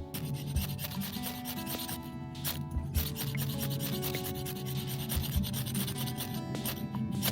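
Steady rasping scrape of a tool working wood, with a few short breaks, over acoustic guitar background music.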